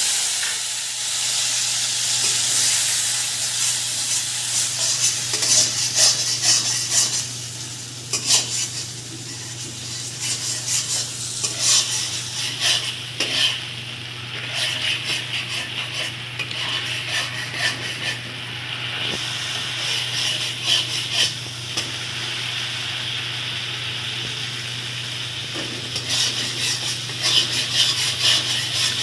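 Ground turmeric, coriander and chili spice mix sizzling in hot oil in a kadai while a spatula stirs and scrapes it, with frequent clicks and scrapes against the pan: the spices being fried down (kashano). A steady low hum runs underneath.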